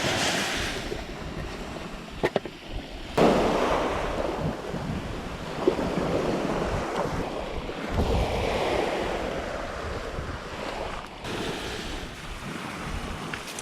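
Sea waves washing in, with wind buffeting the microphone. A couple of sharp clicks come about two seconds in, and a louder surge of wash starts suddenly about three seconds in, then slowly eases.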